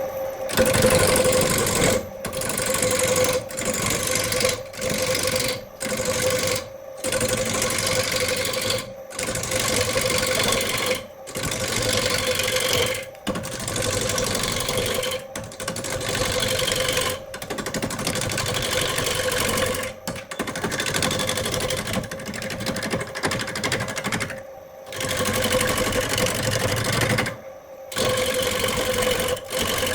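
Power tool working wood in repeated short passes: about a dozen noisy bursts of one to three seconds each, with brief pauses between, over a steady motor hum.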